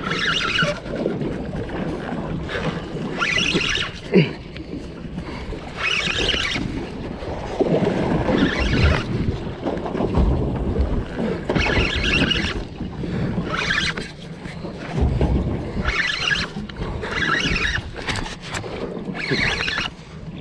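Spinning reel cranked in short bursts, about one every two seconds, as the angler pumps and winds in a hooked kingfish under heavy load. Wind and water rumble underneath.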